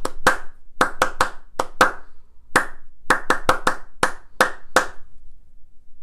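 Hand claps beating out a four-bar rhythm in 2/4 for a rhythm-repetition (rhythm dictation) exercise. There are about fourteen sharp claps in uneven short-and-long groupings, stopping about five seconds in.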